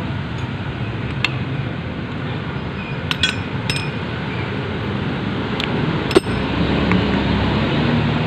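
A few light metallic clinks of a steel socket and hand tools being handled, the sharpest about six seconds in, over a steady low background rumble.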